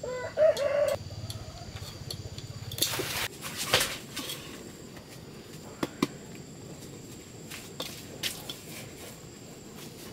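A short, wavering pitched call opens the clip. Then come rustling of leaves and a few sharp knocks and clicks as a ripe jackfruit is handled, over a steady high insect trill.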